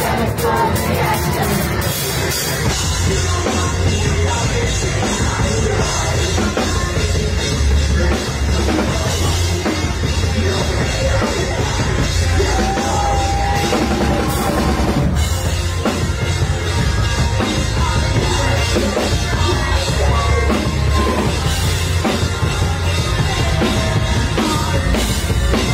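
Live rock band playing loud: electric guitar, bass guitar and drum kit driving steadily together.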